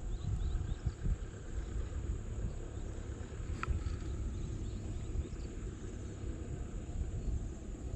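Pondside ambience: a steady high insect buzz over a low rumble, with one short chirp about three and a half seconds in.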